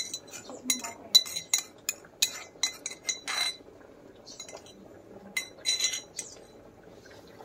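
Steel spoon clinking and scraping against the inside of a metal mortar, scooping out crushed pepper-berry paste. Quick runs of ringing clinks for the first three seconds, a longer scrape near three and a half seconds, then another short run of clinks and a scrape around six seconds in.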